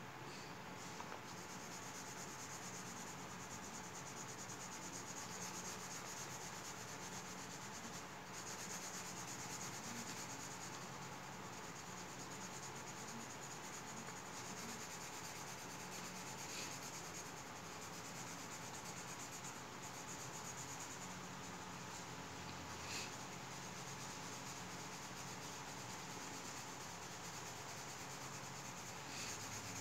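Pink crayon rubbing back and forth on paper, shading in a drawing with steady scratchy strokes and a few faint taps.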